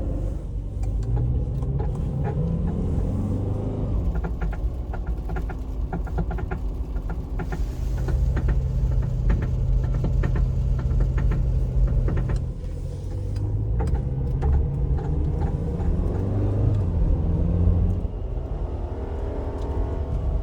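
A car's worn CV joint clicking rapidly and repeatedly over engine and road rumble as the car drives: the sign of a worn or broken CV joint in one of the CV axles. The clicking is densest for the first dozen seconds and thins out towards the end.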